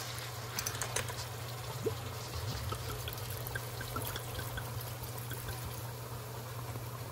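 White wine poured from a bottle in a steady stream over clams in a stainless steel pot, trickling and splashing among the shells, with scattered small ticks.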